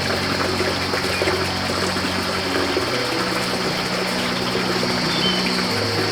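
Soft background music of held notes that change every second or so, over a steady rush of running water.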